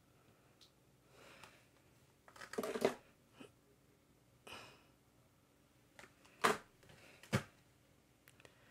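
Quiet handling of rubber-stamp packages in windowed plastic-and-card boxes: soft rustles, a louder rustle about two and a half seconds in, and two sharp clicks about a second apart near the end.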